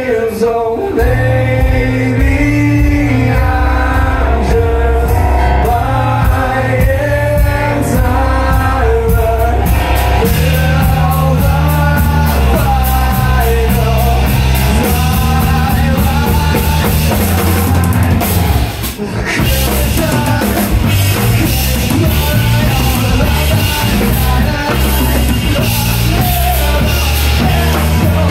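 Live rock band playing: drum kit, electric bass and keyboard with a lead voice singing over the first part. About ten seconds in the bass and drums get heavier with steady cymbals, and the band stops for a moment a little past the middle before coming back in.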